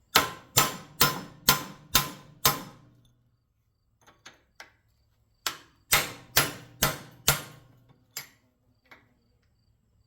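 Hammer striking a steel punch to drive a press-fit steel insert out of a copper block, metal ringing on each blow. Six hard blows come about two a second, then a few light taps, then five more hard blows and two light taps near the end.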